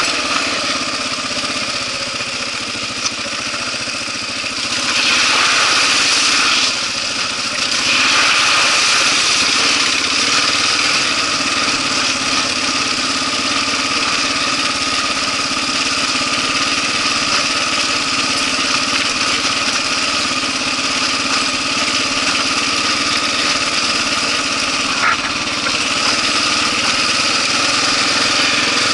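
Kawasaki KLR650's single-cylinder four-stroke engine running steadily while the motorcycle rides along a dirt and gravel track, getting louder about five seconds in and again a few seconds later.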